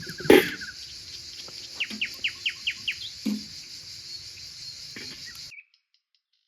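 Woodland ambience: a steady high-pitched insect drone, with a bird calling a quick run of about six falling notes about two seconds in. A sharp knock sounds near the start and a softer one about three seconds in, and everything cuts off suddenly about five and a half seconds in.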